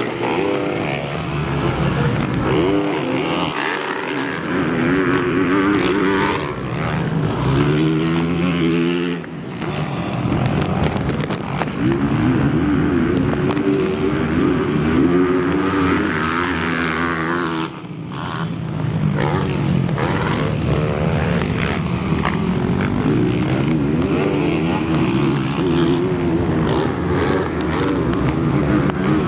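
Motocross bikes racing: several engines revving up and falling back as they ride through the track, the pitch rising and dropping over and over, with short dips in volume about nine and eighteen seconds in.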